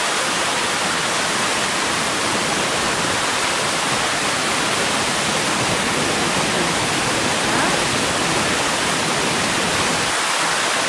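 Waterfall pouring down a rock face close by: a steady, loud rush of falling water that does not change.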